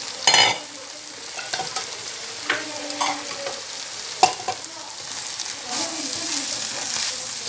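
Bamboo shoots, long beans and peas sizzling in oil and spice paste in a wok while a metal spatula stirs them, clinking and scraping against the pan. A loud metal clank rings out right at the start, followed by several lighter clinks.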